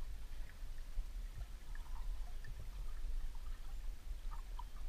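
Underwater sound picked up by a submerged camera: a steady low rumble of water moving against the housing, with faint scattered ticks and pops.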